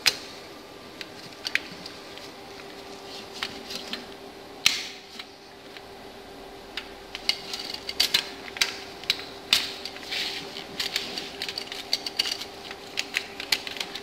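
Metal timing chain links clicking and rattling lightly against sprockets and guides as a duplex timing chain on a Nissan Navara D40 engine is handled and fitted by hand. The irregular clicks come in quick clusters in the second half, over a steady faint hum.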